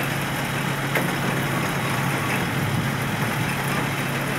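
Heavy truck diesel engine running steadily with an even low hum, with one short knock about a second in.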